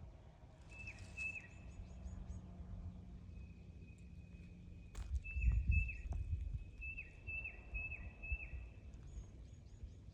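A forest bird calling repeatedly: short high notes, each with a quick downward flick, in several runs of two to four. Under it a low rumbling noise runs throughout, swelling loudest about halfway through, with a sharp click just before that.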